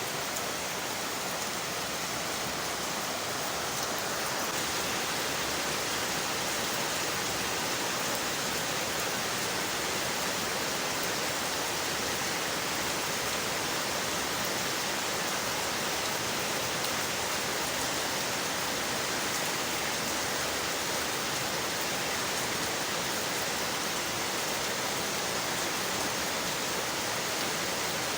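Steady rain falling on window glass, an even hiss that gets a little louder about four seconds in.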